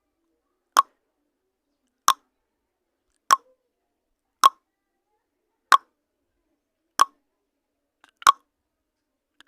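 Countdown timer sound effect ticking the seconds of a quiz countdown: a short click about every second and a quarter, seven in all, with silence between.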